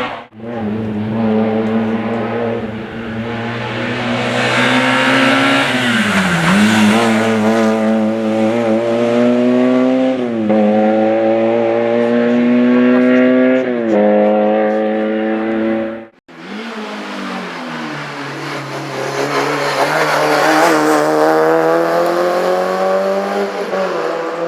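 Rally car engines under hard acceleration, the pitch climbing steadily and dropping abruptly at each upshift, three times in the first car's run. A brief break about 16 s in is followed by a second car accelerating with a rising engine note.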